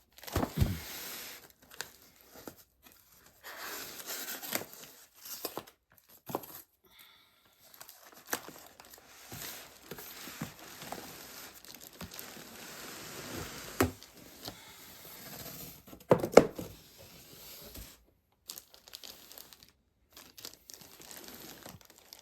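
Cardboard shipping box being opened by hand: irregular tearing, rustling and crinkling of packing material, with several sharp knocks and bumps, the loudest about two-thirds of the way through.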